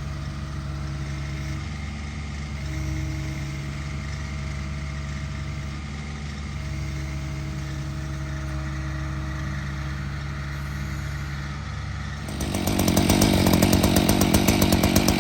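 An engine runs steadily with a low hum and a few tones that come and go. About twelve seconds in, a chainsaw opens up to full throttle, cutting into a tree trunk, much louder.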